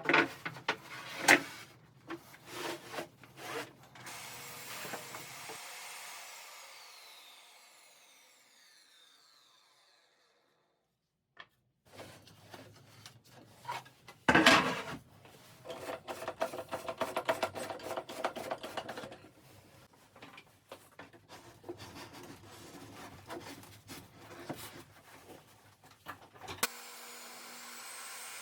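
Lumber being handled at a woodworking machine: wood knocking and sliding, then the machine's whine falling and fading out over several seconds. After a short pause comes a long stretch of wood scraping and rubbing with sharp knocks, which stops abruptly near the end.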